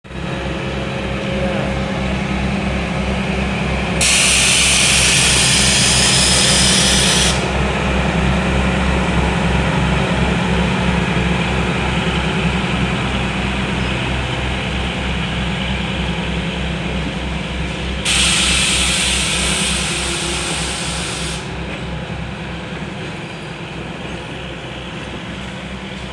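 Freight train, hauled by a diesel locomotive, rolling across a level crossing, with an even low rhythmic running throughout. Two loud, shrill, noisy blasts of about three seconds each cut in, about four seconds in and again at about eighteen seconds.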